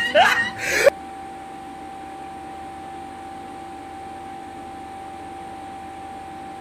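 A few quick rising squeals cut off abruptly just under a second in. A steady hum with a constant mid-pitched tone follows.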